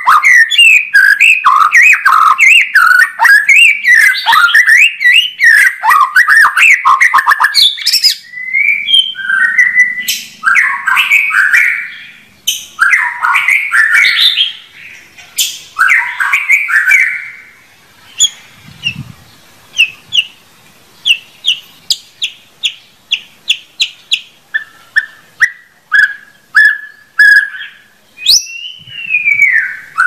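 White-rumped shama (murai batu) singing. For about the first eight seconds it pours out a fast, dense run of varied whistles. Then come shorter phrases with pauses, a quick series of sharp ticking notes at about four a second past the middle, and a falling whistle near the end.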